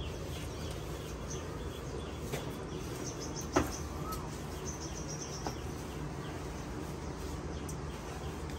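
Faint bird chirps over a steady low hum, with one sharp knock about three and a half seconds in.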